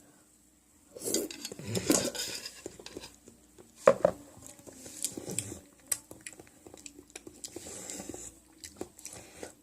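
Metal utensil clinking and scraping against a bowl or dish while eating, with scattered sharp clicks, the loudest about four seconds in.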